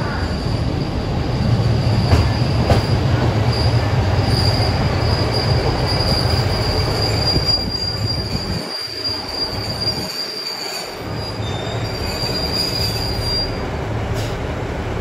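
KiHa 85 diesel multiple unit pulling slowly into a platform: a high, steady wheel squeal rides over the low rumble of its diesel engines. The squeal fades out near the end as the train comes to a stop.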